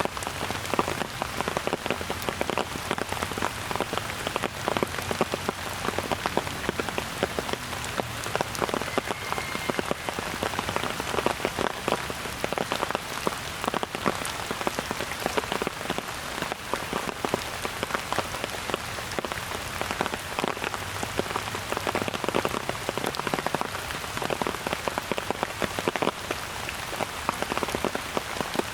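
Steady rain falling, with a dense stream of individual drops hitting close by.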